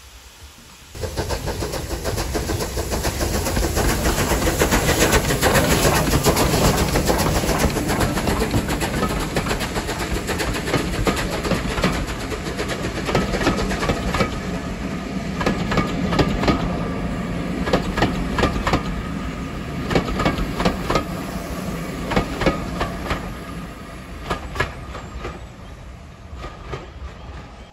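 A steam train passing close by, the engine loud as it goes past. Then the coaches' wheels clatter over the rail joints in a steady run of clicks, getting quieter as the train draws away.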